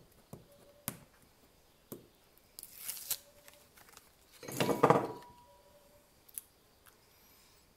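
A strip of patterned card being handled on a craft mat: a few light taps and rustles, with a louder rustle about four and a half seconds in as the strip is set down.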